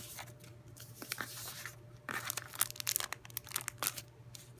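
Clear plastic packaging and paper crinkling and rustling as they are handled, in short irregular crackles that grow busier about two seconds in.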